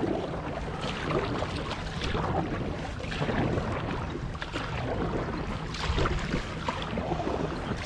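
Steady rushing of wind and water around a fishing kayak on open saltwater, with faint scattered ticks.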